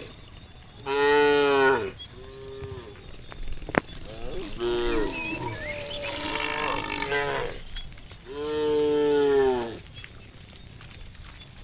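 Cattle mooing: four or five separate calls from the herd, a loud one about a second in, shorter ones around two and five seconds, and a long one about eight seconds in, each falling in pitch at its end.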